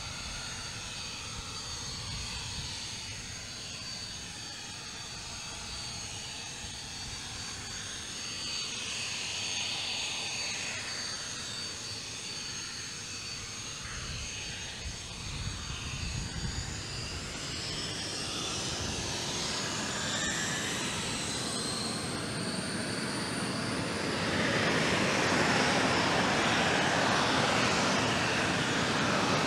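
Soko G-2 Galeb's Rolls-Royce Viper turbojet running with a steady high whine, then spooling up: from about halfway through the whine rises in pitch, and near the end the jet noise swells into a loud rush as power comes on.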